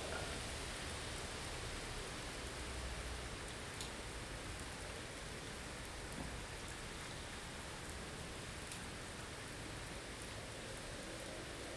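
Blizzard ambience: a steady hiss of wind-driven snow, with a low wind rumble in the first few seconds and a few faint ticks.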